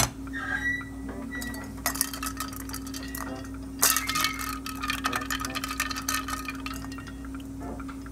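Hands splashing and rubbing in a stainless steel bowl of water, with irregular clinks against the metal and the bowl ringing faintly. A steady electrical hum runs underneath.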